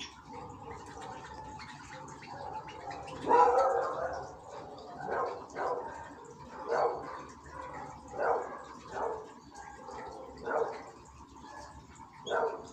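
A dog barking: one longer, loudest bark about three seconds in, then a run of shorter barks roughly once a second.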